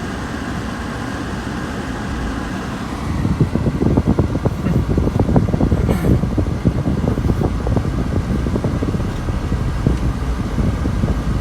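Honda Vamos engine running rough on a dead cylinder, with an uneven, lumpy beat. About three seconds in it gets louder and the irregular pulses become stronger.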